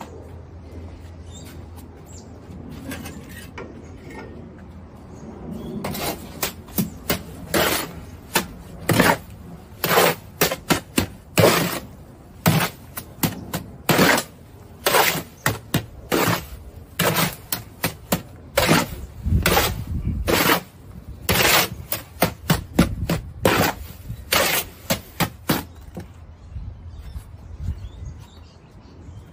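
Shovel scraping and knocking against a steel wheelbarrow tray while turning a dry mix of sand and white powder by hand: a run of sharp, irregular strokes, about two a second, starting some six seconds in and stopping near the end.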